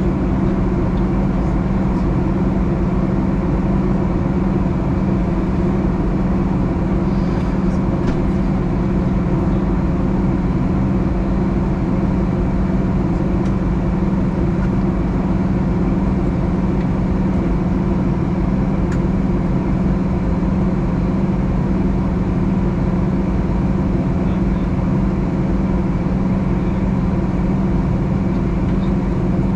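Steady cabin noise inside a Boeing 737 in flight on its descent: an even drone of the jet engines and rushing air, with a constant low hum.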